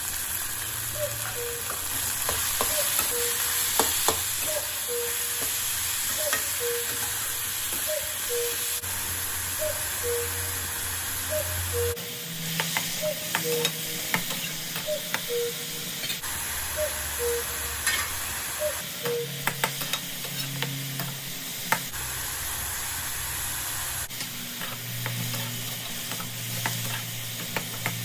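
Minced chicken keema, onions and pointed gourd seeds frying in mustard oil in a pan, with a steady sizzle. A slotted spatula stirs and scrapes the mixture, making frequent sharp scrapes and clicks against the pan.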